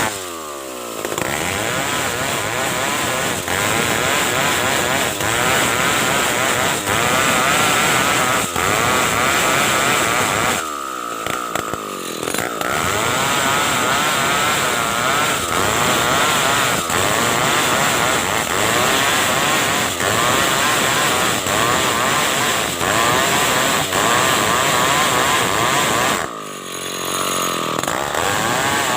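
Stihl chainsaw running hard while ripping a large ulin (ironwood) log into planks, its pitch wavering under the cutting load. The revs drop briefly three times: at the start, about eleven seconds in, and near the end.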